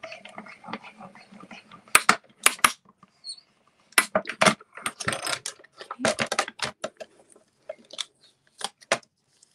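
Stampin' Up die-cutting machine with a plate sandwich being cranked through it: irregular sharp clicks and clacks of the plates and machine. Near the end, rustling and clicks as the cut cardstock is lifted off the thin metal die.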